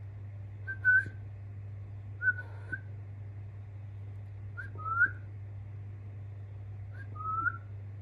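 Young budgerigar giving four short, high, whistled chirps, a second or two apart, some sliding upward in pitch, over a steady low hum.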